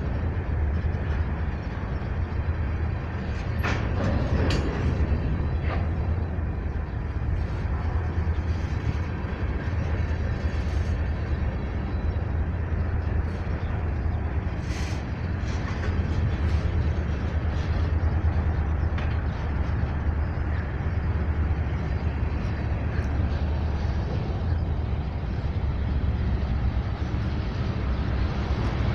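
Ferromex freight train rolling past: a steady rumble of wheels on rail, with a few sharp clanks about 4 seconds in and again halfway through.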